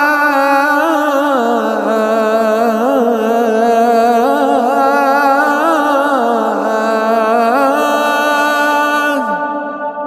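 A voice chanting the adhan, the Islamic call to prayer, in one long melismatic phrase with a wavering, ornamented pitch. The phrase drops in pitch and ends about nine seconds in, leaving a fading echo.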